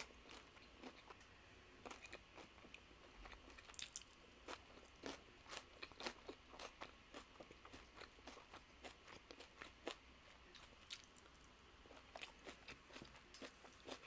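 Faint crisp crunches of tortilla nacho chips being bitten and chewed, coming in quick, irregular succession.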